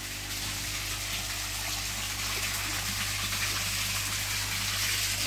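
Water running into a koi fry pond from an inlet, a steady splashing rush that grows a little louder, over a steady low hum.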